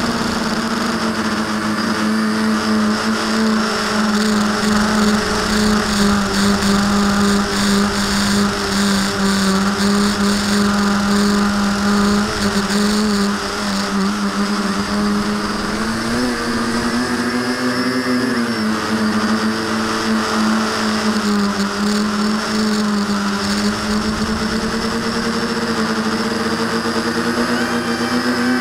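V-tail quadcopter's electric motors and propellers whining steadily, heard from a camera mounted on the craft. The pitch wavers as the throttle changes and rises for a moment a little past the middle.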